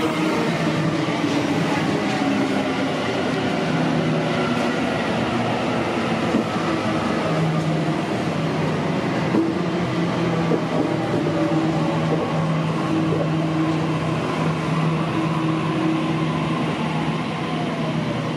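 Sydney Trains Waratah electric train coming into the platform: its motor whine falls in pitch over the first few seconds as it slows, then the train stands with a steady low hum from its onboard equipment.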